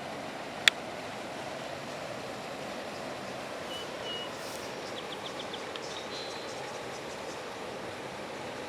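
Steady rush of flowing river water. A single sharp click comes about a second in, and faint bird chirps, including a quick run of short notes, sound past the middle.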